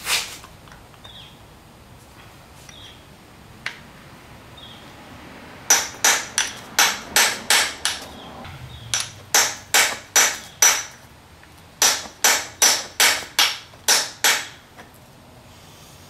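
Hammer blows on a pin punch driving at the shift linkage pin (roll pin) on a Honda B18C5 transaxle: three runs of six to eight sharp, ringing metal-on-metal strikes, about three a second, starting about six seconds in. The pin is a stubborn one, notorious as hard to drive out.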